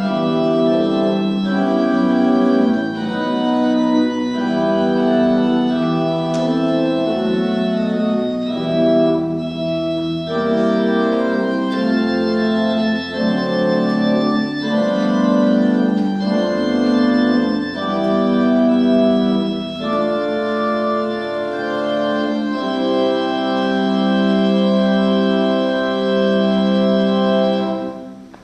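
Church organ playing slow sustained chords, the notes held and changing every second or two, until the music stops just before the end.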